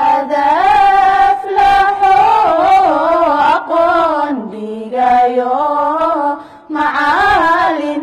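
A solo voice singing a melodic song in long, held phrases, with a short break about two-thirds of the way through.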